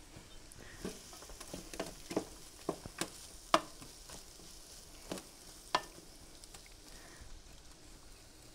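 Chopped bell peppers, onions and garlic sautéing in olive oil in a skillet with a faint sizzle, stirred with a wooden spatula that knocks and scrapes against the pan about a dozen times. The knocks stop about six seconds in, leaving only the sizzle.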